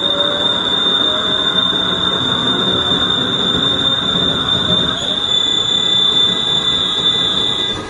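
Machine running with a steady, high-pitched whine over a dense mechanical rumble; the whine stops abruptly near the end.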